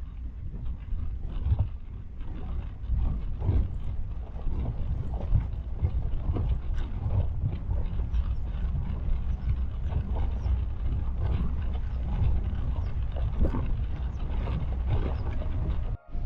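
A vehicle driving over a rough track: a steady low rumble with frequent irregular rattles and knocks, cutting out briefly near the end.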